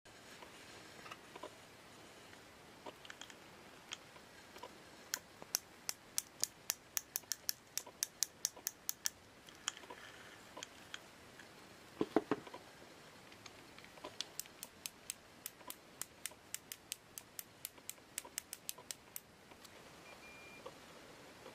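Baitcasting reel's drag clicker ratcheting: two runs of quick, sharp clicks, about five a second, with a single clunk of the reel being handled between them.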